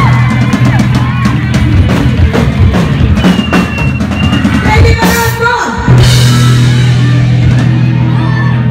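Live rock band (drum kit, electric bass and electric guitar) playing out the end of a song: a run of drum hits and cymbal crashes, a sliding drop in the low notes a little after halfway, then a held, ringing chord.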